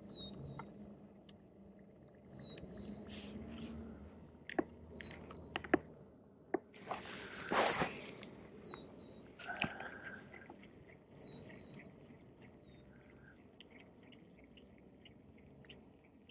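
Baitcasting rod and reel during a cast and retrieve of a topwater lure: a brief hiss about seven seconds in as the line runs out on the cast, then faint, regular ticking as the reel is cranked.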